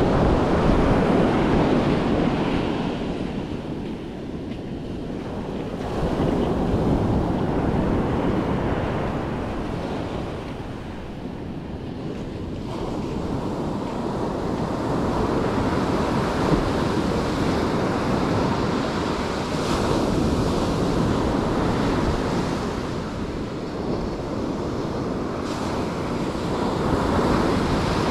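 Ocean surf breaking and washing up a sandy beach, swelling and easing wave by wave, with wind rumbling on the microphone.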